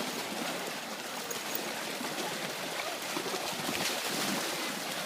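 Steady splashing and sloshing of water as dogs play in a dog pool.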